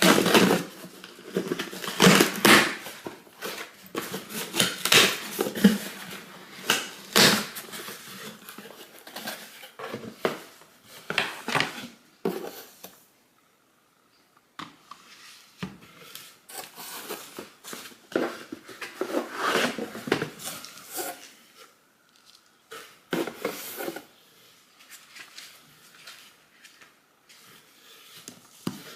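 Irregular knocks, clicks and clatter of household items being handled and set down, with brief rustling, with a short lull about halfway through.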